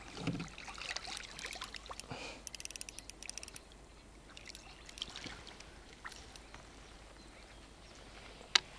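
Faint water splashing and trickling, irregular for the first three seconds or so, then quieter; a single sharp click near the end.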